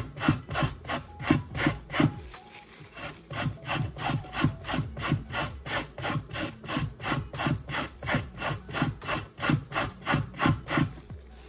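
A carrot being grated on a stainless steel box grater: rhythmic rasping strokes, about three a second, with a short lull about two seconds in.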